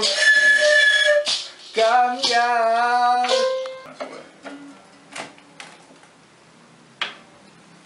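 Breathy pan flute notes for the first three seconds or so, the second note wavering in pitch. Then a few soft, halting notes picked out on an upright piano, with scattered key clicks, one sharper click near the end.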